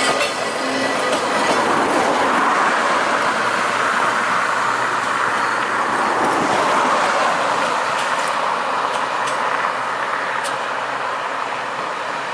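Electric tram and its open trailer rolling along the track, steel wheels running on the rails with a few clicks late on as they cross joints and pointwork, the sound slowly fading as the tram moves away.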